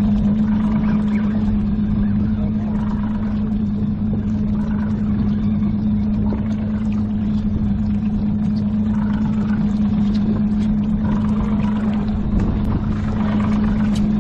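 Fishing boat's engine running steadily, a constant low hum that does not change pitch.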